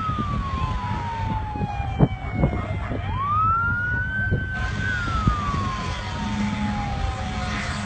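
Fire-rescue truck siren wailing slowly: its pitch falls, sweeps back up about three seconds in, holds, then falls again. A steady low rumble runs underneath, with a sharp thump about two seconds in.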